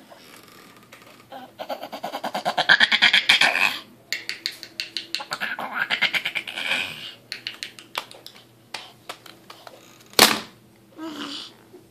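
A baby's loud, stuttering vocalizing, the voice chopped into rapid even pulses like bleating, in two long bouts of about two and a half seconds each. A sharp knock comes about ten seconds in.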